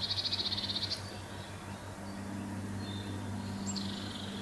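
Eurasian nuthatch scolding: a fast, high trill in the first second and another starting near the end, with a short high note between. A steady low hum runs underneath.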